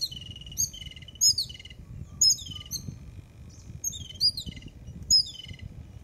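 Jungle babblers calling: short, high notes in quick clusters about once a second, each note sliding down a little in pitch.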